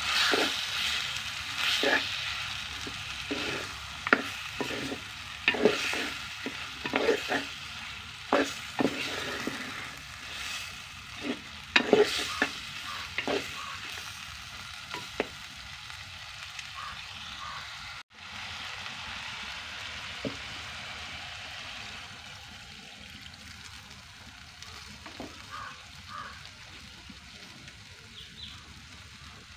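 Wooden spoon stirring chicken curry in a clay pot, scraping and knocking against the pot again and again over a steady sizzle of frying. About halfway through the stirring stops and only a quieter steady sizzle goes on.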